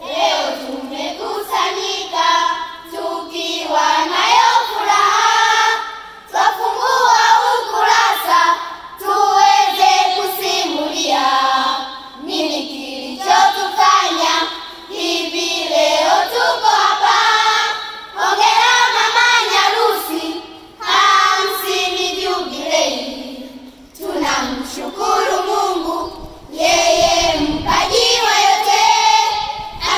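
Children's choir singing a poem together in phrases of a couple of seconds each, with brief pauses between them.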